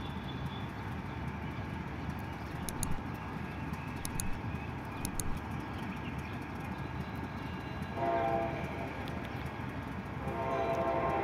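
Diesel locomotive horn sounding twice over a steady low rumble of trains: a short blast about eight seconds in and a longer one starting near the end.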